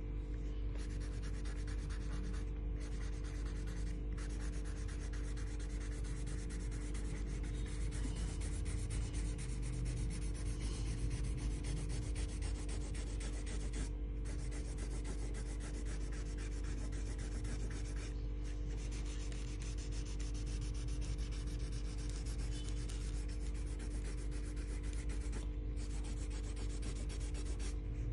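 A colouring tool scribbling on paper in rapid, continuous back-and-forth strokes, pausing briefly a few times. A steady low hum runs underneath.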